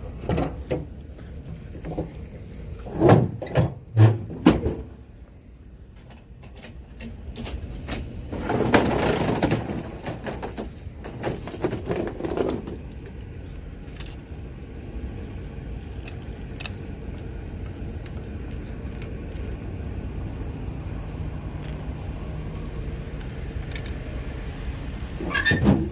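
Fishing rods and gear being handled at a vehicle: several sharp knocks between about three and four and a half seconds in, a longer clatter from about eight to twelve seconds, then a steady low rumble.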